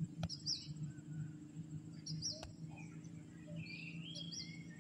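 Birds calling faintly: short high chirps repeated every second or two, with a longer stepped call near the end, over a low steady drone.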